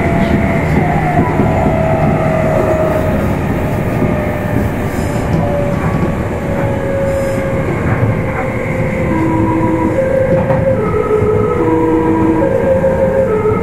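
Onboard running noise of a Meitetsu 1000/1200-series electric train, motor car Mo 1414, rolling on the rails, with a whine slowly falling in pitch. From about two-thirds of the way in, a string of short held tones steps up and down in pitch over the running noise.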